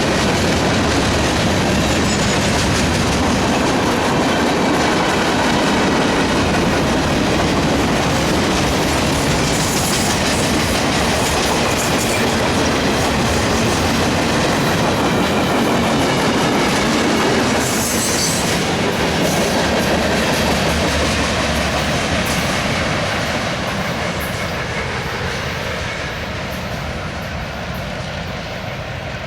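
Freight cars of a CSX mixed freight train rolling past, wheels clattering over the rail joints under a steady rumble. The sound fades over the last ten seconds or so as the train moves away.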